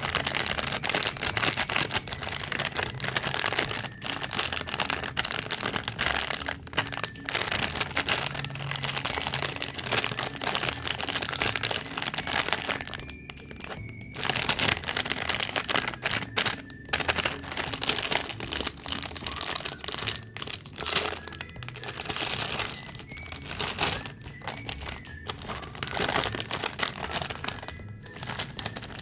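Plastic snack wrappers crinkling and tearing as packaged cakes and cookies are unwrapped, in dense bursts with short pauses, over faint background music.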